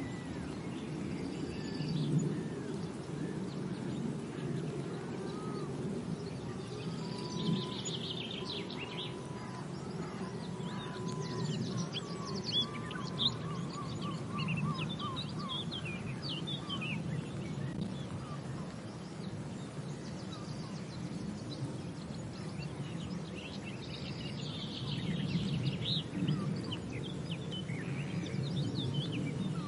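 Wild birds chirping and calling in scattered bursts over a steady low background noise, with one held whistle and then a quick run of repeated notes about ten seconds in.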